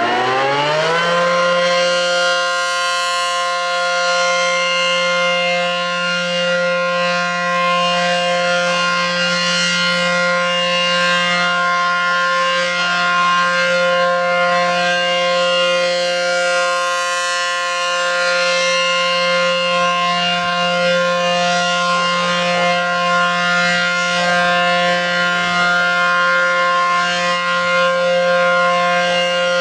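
ACA Allertor 125 electronic outdoor warning siren sounding its steady alert tone for a tornado drill test. It rises in pitch over about the first second, then holds one steady, loud tone with slight swells in loudness about every five seconds.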